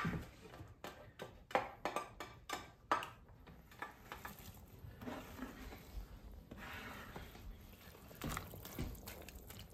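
Shredded cabbage being scraped off a cutting board into a pot of borsch broth with a utensil: a run of light clicks and knocks in the first few seconds, then soft liquid sloshing as it is stirred in with a ladle.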